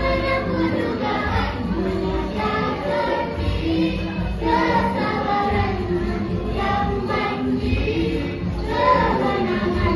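A group of young girls singing a nasyid together in unison, a choir of children's voices carrying a sustained melody with long held notes.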